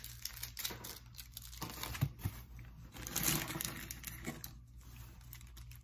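Candy-bar wrappers crinkling and rustling as they are handled, with irregular small crackles and a couple of soft knocks about two seconds in.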